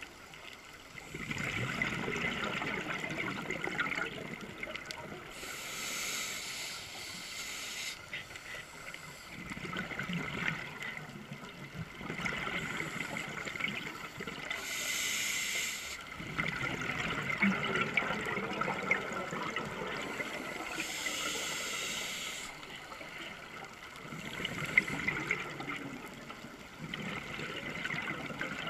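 Scuba diver breathing through a regulator underwater: a hissing inhale about every seven seconds, each followed by several seconds of bubbling exhale.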